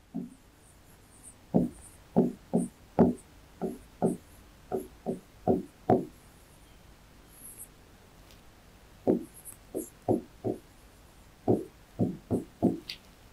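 Writing on a board: a run of short, sharp taps and knocks as each word is written, in two bursts with a pause of about three seconds between them, with faint high scratching.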